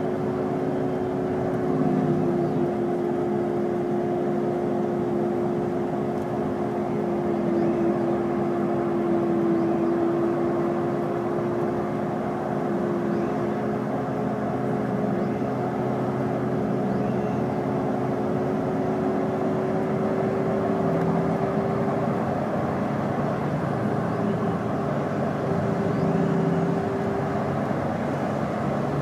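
Iveco Crossway LE city bus with its Cursor 9 diesel engine and Voith automatic gearbox, heard from inside the bus as it runs. The engine and driveline noise is steady, with a held whine that dips slightly and then rises a little.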